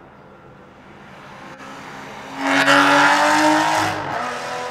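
Aston Martin sports car accelerating hard past at full throttle. Its engine builds as it approaches, jumps to its loudest about two and a half seconds in, then falls away as it pulls off up the track.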